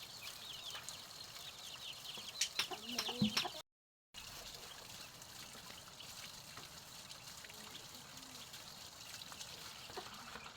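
Chickens clucking, with quick high chirps and a few clicks in the first few seconds; the sound cuts out for half a second, then only faint background noise follows.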